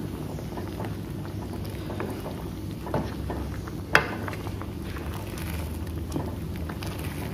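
Chicken curry simmering in an aluminium pot on a gas stove while a plastic ladle stirs it. A steady low rumble runs under scattered soft clicks and scrapes of the ladle on the pot, with one sharper knock about four seconds in.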